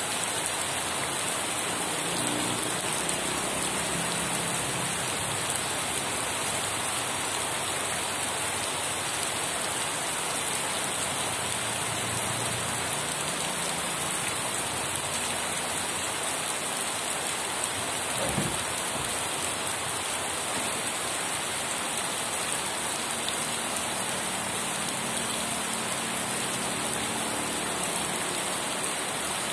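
Steady rain falling and pattering on surfaces, an even hiss that stays unchanged throughout.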